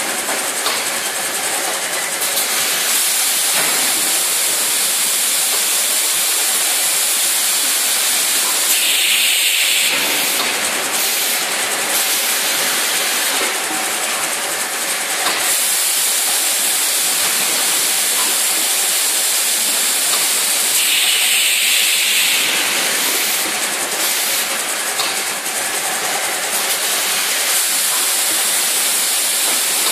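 Vertical bagging machine running through its filling and sealing cycle: a steady hiss of machinery, with a louder hissing burst about every twelve seconds.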